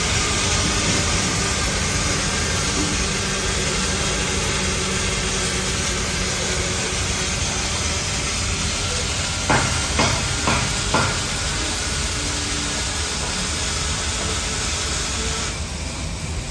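Welding arc from a weld lathe's torch, burning with a steady sizzling hiss. A few sharp clicks come about ten seconds in, and the hiss cuts off shortly before the end.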